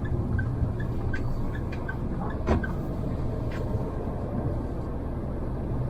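Mahindra Thar driving, heard from inside the cabin: a steady low engine and road rumble, with a sharp knock about two and a half seconds in and a lighter one a second later.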